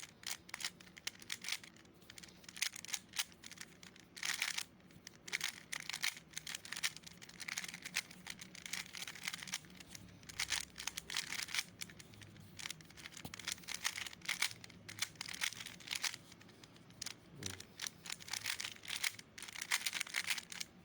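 Plastic GAN speedcube being turned fast by hand: rapid clicking and clacking of the layers, in bursts of quick turns with short pauses between them.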